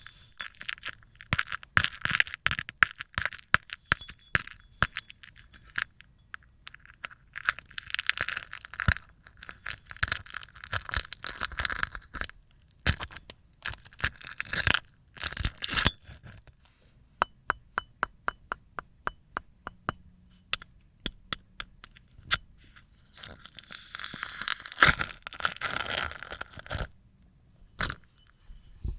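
Dried slime being peeled off a plate: crackling, tearing runs full of sharp cracks, in four stretches. Between them, about two-thirds through, is a series of separate quick clicks.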